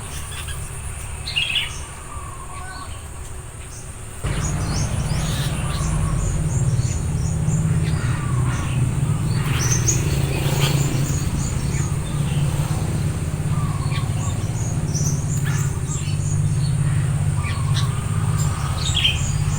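Sooty-headed bulbuls chirping in many short calls. A steady low rumble starts abruptly about four seconds in and stays under the calls.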